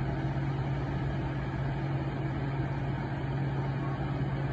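A steady low mechanical hum at one constant pitch, with no change in loudness.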